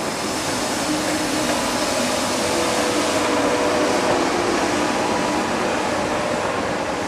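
Passenger train rolling along the track, heard from on board: a steady rush of wheel and rail noise with faint tones through it.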